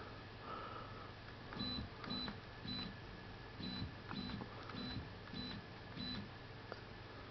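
A RepRap Prusa Mendel 3D printer's horizontal-axis stepper motor making short test jogs. There are about nine brief buzzing moves, each roughly a quarter second long: three about half a second apart, then after a short pause, six more.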